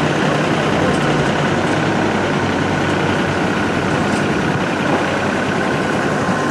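Steady machinery drone with a faint, steady high whine beside a parked Airbus A320 airliner and its ground equipment at the gate.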